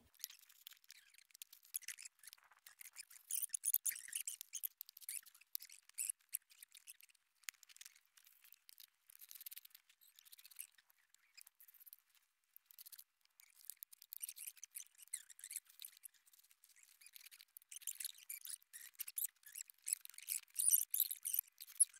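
Dry crackling and rustling of ginger rhizomes being packed by hand into woven sacks. The sound is thin and irregular, with no low end, and picks up about three seconds in and again in the last third.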